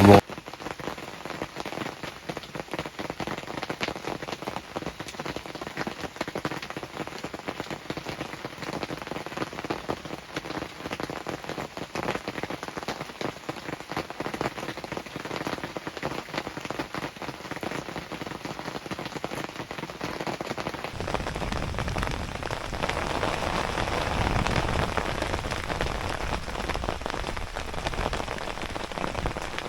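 Steady rain falling on and around a hunting blind, heard from inside it: a dense patter of individual drops. It grows louder and fuller about 21 seconds in.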